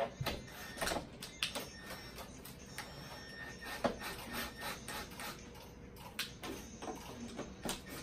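Hand screwdriver driving screws into a speaker base, with irregular clicks and short scraping strokes as the screws turn into the wood cabinet.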